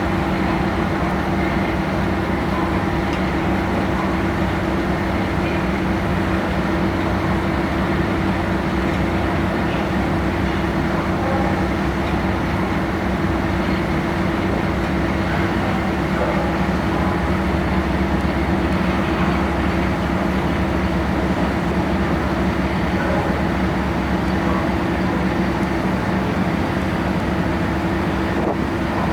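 Steady, unbroken drone of a car ferry's engines, a low hum holding a few steady tones under a rushing noise.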